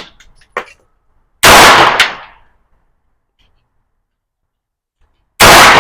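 Two single shots from a 9mm AR-9 carbine, about four seconds apart, each a sharp crack that dies away over about a second, with a few light clicks after.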